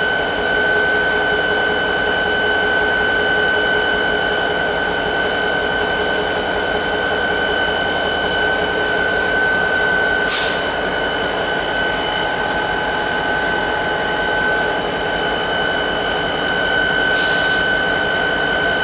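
Train rolling past with a steady rumble of wheels on rail and a continuous high-pitched ringing tone. Two short hisses come about ten and seventeen seconds in.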